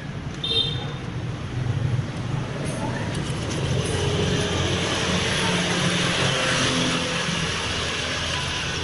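Street traffic: a road vehicle passing close, growing louder through the middle and easing off near the end, over a steady low rumble.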